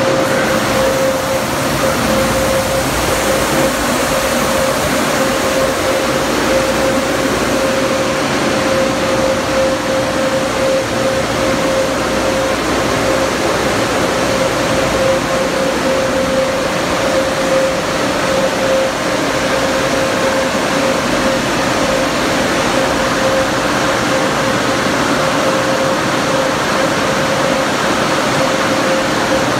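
D&S Super 5000 car wash's overhead dryer blowers running: a loud, steady rush of air with a constant whine.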